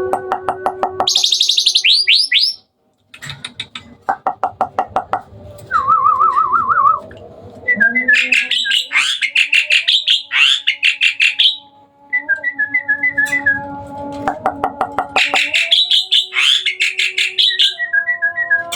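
Hybrid Asian pied starling (jalak suren) singing a long, varied song in full voice: rapid rattling note trains, a wavering trill, dense high whistled chatter and runs of short repeated whistles, broken by brief pauses.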